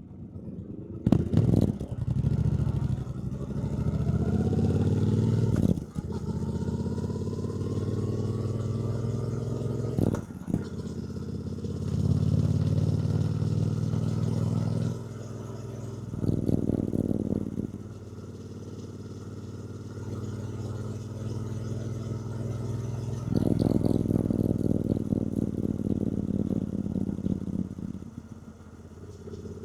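2024 Triumph Bonneville T120's 1200 cc parallel-twin engine pulling up through the gears, the pitch rising under throttle with short breaks at the gear changes. It eases off for a quieter stretch a little past the middle, then pulls hard again.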